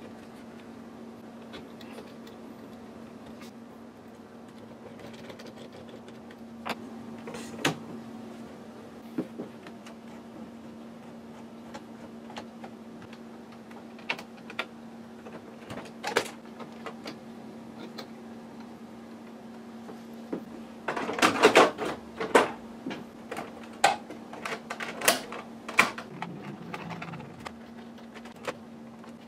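Scattered plastic clicks and knocks as an HP Photosmart C5180 all-in-one printer is handled and taken apart, with a burst of rattling clatter about two-thirds of the way through. A steady low hum runs underneath.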